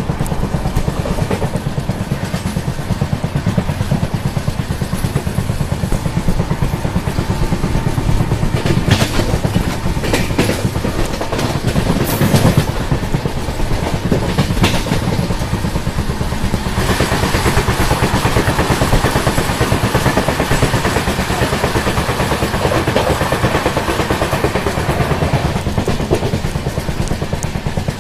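A moving passenger train heard from an open coach door: steady rumble of the wheels on the rails with a fast clatter, plus rushing noise. A few sharp clacks come in the middle, and the sound grows hissier a little past halfway.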